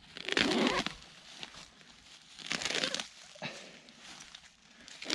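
Hands tearing up clumps of dry grass and leaf litter: crackling, rustling tears in short bursts a couple of seconds apart.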